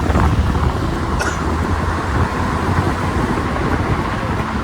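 Steady low road rumble of a moving vehicle, engine and tyre noise heard from inside while riding, with a brief light click about a second in.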